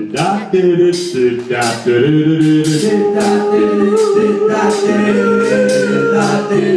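Doo-wop vocal group singing in close harmony: held chords under a higher moving vocal line, over a steady rhythm of sharp percussive hits.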